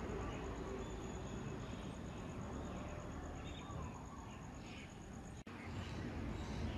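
Bus engine idling with a steady low rumble, and a thin, evenly pulsing high tone over it that stops at a cut about five and a half seconds in.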